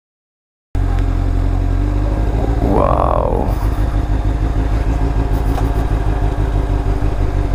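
After a moment of silence, a Honda Hornet motorcycle's engine starts to be heard running steadily under the rider, with a brief higher-pitched sound about three seconds in.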